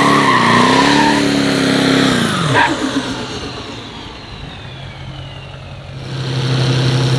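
Chevrolet Silverado HD diesel pickup revving hard with its rear tyres spinning in a burnout, the engine note climbing and wavering, then dropping away about two and a half seconds in. After a quieter stretch, a steady low engine hum grows louder near the end as the truck rolls up to stage.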